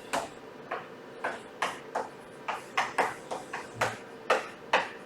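Quick, irregular taps and clicks of writing strokes, about a dozen in a few seconds, as an equation is written out.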